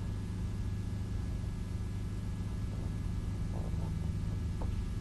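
Steady low electrical hum, with a few faint soft scratches near the end from a compass's pencil being drawn along masking tape on a fiberglass cowling.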